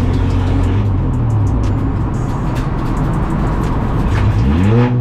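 Racing car engine running hard, steady, then dipping in pitch near the end and climbing again as it accelerates.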